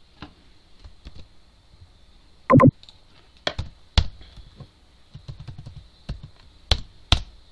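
Typing on a computer keyboard: scattered, irregular keystrokes with a few louder clicks.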